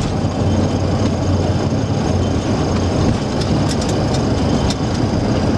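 Boeing 737-300 rolling down the runway after touchdown, heard from the cockpit: a steady rumble of the wheels on the runway over engine noise, with a few light ticks a little past halfway.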